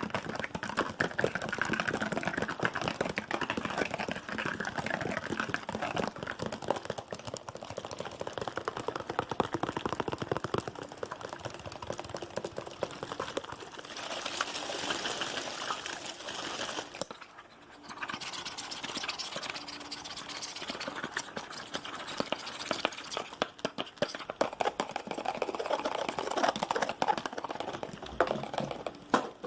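Fast, aggressive ASMR tapping: a dense, rapid stream of taps and clicks on objects, with a short pause a little past halfway.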